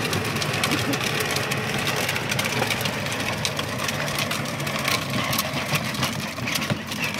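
Battery-powered Corvette Power Wheels ride-on toy car driving along asphalt: a steady whirring and rumbling from its electric drive motors and hard plastic wheels rolling on the pavement.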